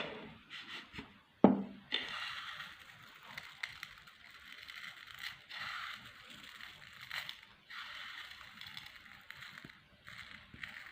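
Meat grinder crushing hard, dry snack pellets: an uneven crackling crunch that comes and goes in patches, with one sharp loud knock about a second and a half in.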